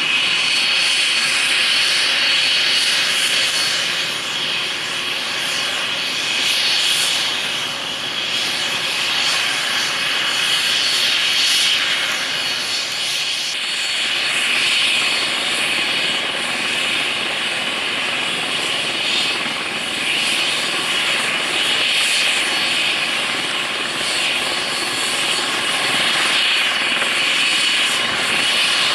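Airbus H135 (EC135) twin-turbine helicopter running on the ground with its rotor turning: a steady, loud high turbine whine mixed with rotor wash, gently swelling and easing.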